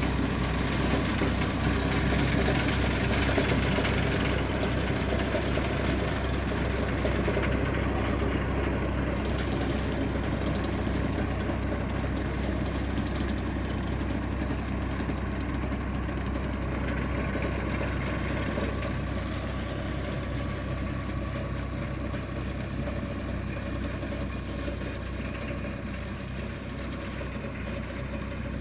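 Ford 4600 tractor's three-cylinder engine running steadily as it pulls a flail mower across grass, gradually growing fainter as the tractor moves away.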